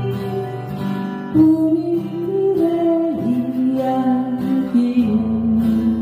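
Acoustic guitar strummed steadily under a woman singing long held notes of a slow folk song, her line stepping down in pitch around the middle.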